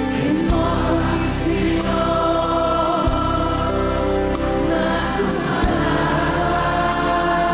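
Live worship band playing a slow song on stage keyboard and electric bass, with a group of voices singing along.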